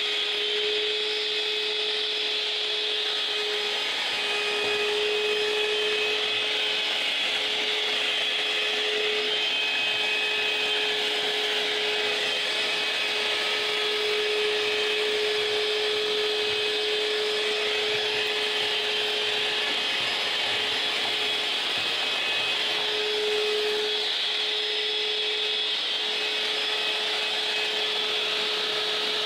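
Canister wet/dry vacuum cleaner running steadily off a 1000 W power inverter, as the heavy load in a discharge test of a 12 V battery: an even rush of air with a constant hum.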